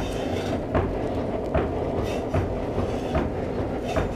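Coal forge fire burning hard under its air blast: a steady low rumbling rush, with a regular knock a little more than once a second.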